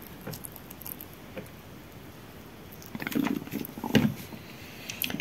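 Faint small clicks and patter as water is squirted from a plastic wash bottle onto peat pellets, then a short burst of rustling and knocks about three to four seconds in as the bottle is handled and set down on the table.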